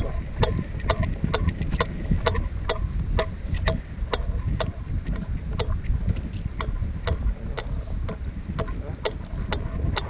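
Spinning reel being cranked slowly, its gears ticking evenly about twice a second, over a low wind rumble on the microphone.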